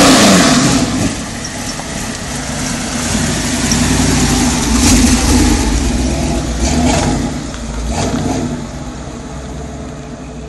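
Car engine at high revs with tyres spinning as a burnout ends, the revs dropping away within the first second. The engine then runs lower, with a few rev blips, as the car drives off.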